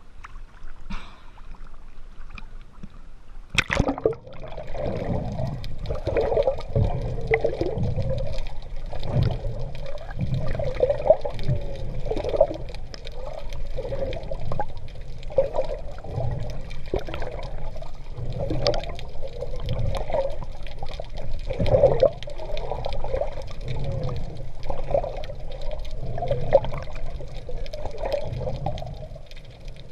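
Sea water splashing and sloshing around a swimmer, with a sharp splash about four seconds in. After it comes a steady wash of water with a pulse roughly every second or so, in time with the swim strokes.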